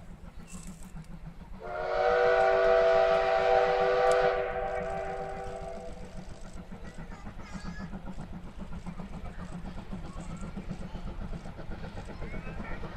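Train whistle blowing one long chord of several tones, starting about a second and a half in and sounding for about four seconds, over the low pulsing sound of the train running.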